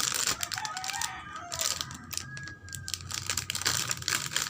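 Plastic toy packaging and pieces being handled during unpacking: crinkling and light irregular clicking.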